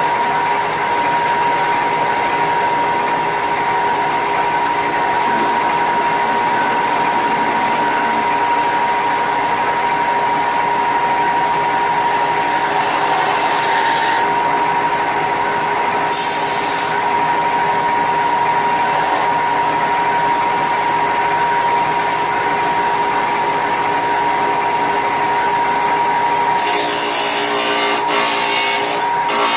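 Electric detail (mouse) sander running steadily with a constant motor whine, sanding the rough edges of a cut aluminum piece, with a few brief hissier stretches in the second half.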